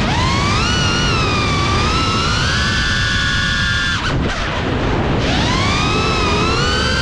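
GEPRC CineLog35 FPV drone's brushless motors and propellers whining, the pitch rising and falling with the throttle. The whine drops out briefly about four seconds in as the throttle is chopped during a roll, then climbs again.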